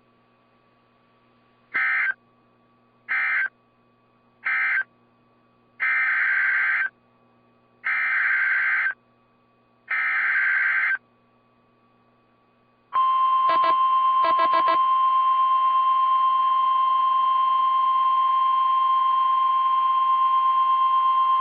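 NOAA Weather Radio Emergency Alert System (SAME) data tones: three short screeching digital bursts closing the previous flood warning, then three longer one-second header bursts announcing the next warning. After them comes the steady 1050 Hz weather radio alert tone for about nine seconds, with a couple of brief crackles near its start.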